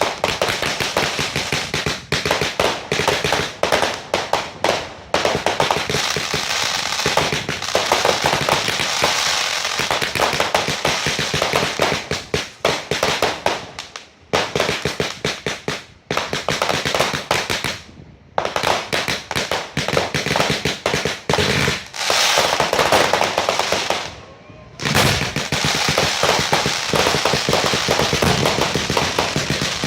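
Fireworks display: a dense, rapid run of crackling and bangs, nearly continuous, with a few short lulls.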